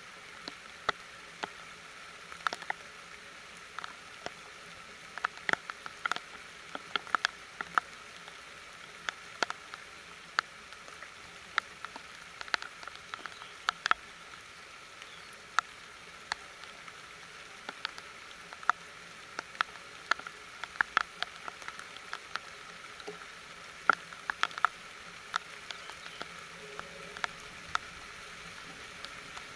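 Rain falling: a steady soft hiss with irregular sharp taps of individual drops landing, at times several a second.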